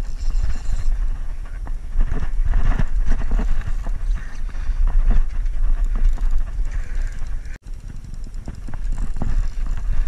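Irregular knocks and thumps over a steady low rumble: handling noise on an action camera's microphone aboard a small fishing boat.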